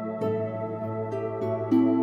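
Soft new-age style background music: held notes, with a new chord coming in near the start and again about three-quarters of the way through.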